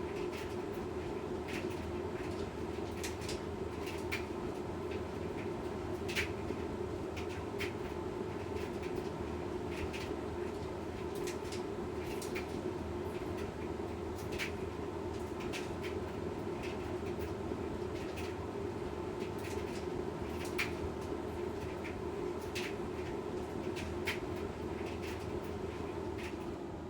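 Washing machine running steadily through its Quick Wash cycle: a constant motor and drum hum with irregular light clicks and taps from the load in the turning drum.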